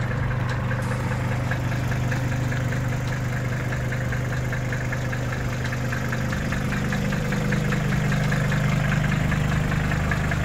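Mercedes-Benz 300D (W123) five-cylinder diesel idling cold, with a steady, rapid diesel clatter over a low hum.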